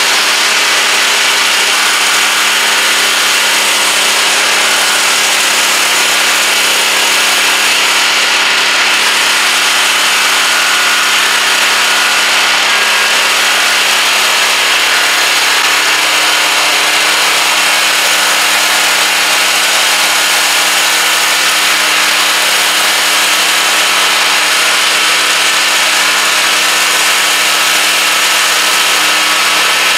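Pressure washer running steadily, driving a 24-inch VEVOR stainless-steel surface cleaner whose spinning spray arm jets water onto concrete. It makes a constant loud hiss of spray over the machine's steady hum.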